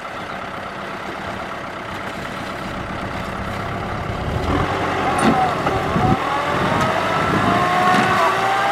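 Farm tractor's diesel engine running under load while it works its way out of deep mud, the revs and loudness climbing from about halfway as it pulls forward.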